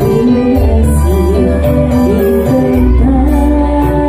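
Live band music played loud through a PA: keyboard, electric guitar and a steady bass with a regular percussion beat, under a woman singing a wavering melody into a microphone.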